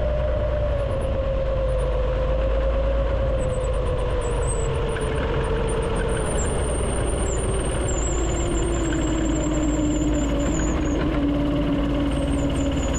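A go-kart's 50-year-old small engine running steadily, its pitch slowly falling throughout.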